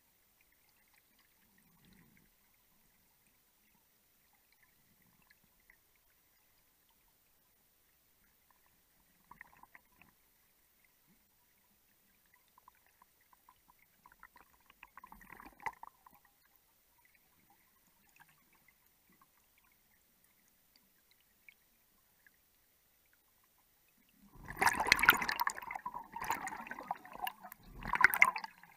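Underwater, a long quiet stretch with only faint ticks, then near the end gas bubbles from a rebreather diver's gear gurgle loudly past the microphone in two bursts.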